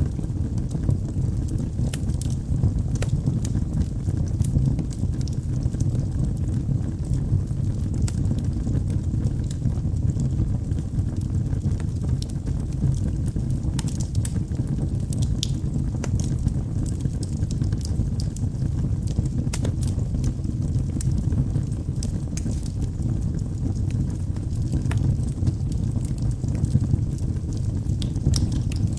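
Log fire burning in a fireplace: a steady low rumble of flames with frequent sharp crackles and pops scattered throughout.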